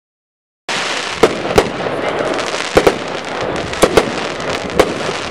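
Brothers Hustle Bustle 24-shot 500-gram firework cake firing: about seven sharp bangs, several in quick pairs, over steady crackling from the bursting stars. The sound begins abruptly less than a second in.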